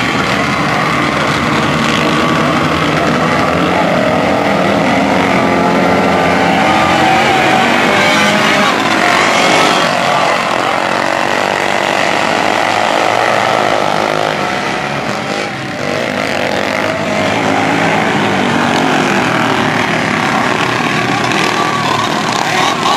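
A pack of dirt-track racing kart engines running hard together, several buzzing pitches rising and falling over one another as the karts accelerate and lift through the turns.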